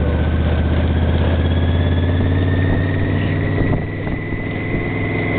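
Yamaha Venture touring motorcycle's V4 engine running steadily while riding, with a faint whine that slowly rises in pitch. About three and a half seconds in the engine note drops and stays lower.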